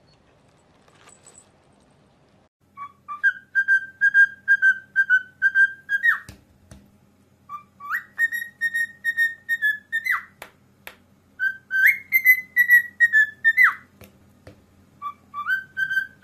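Cockatiel whistling. About three seconds in it begins four phrases of quick repeated high notes, each ending in a sharp swoop, with short pauses between phrases.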